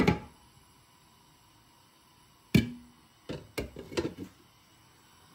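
Cookware knocking and clattering in a kitchen, pots or lids being set down: a knock at the start, a louder one about halfway with a short metallic ring, then a quick cluster of three or four more clatters.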